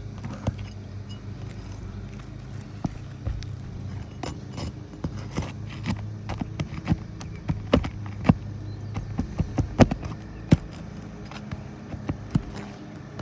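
Irregular sharp knocks and clicks from hand tools working loose asphalt roof shingles, loudest near the middle, over a steady low hum.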